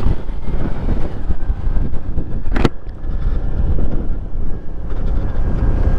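Motorcycle riding along the road, its engine running under heavy wind noise on the microphone, with a faint steady tone above the rumble. A single sharp click about two and a half seconds in.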